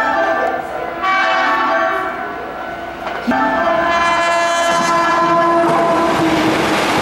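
Keihan electric train sounding its horn: a steady multi-tone blast about a second in, then a longer held blast from about three seconds in, with the rumble and rail clatter of the passing train rising near the end.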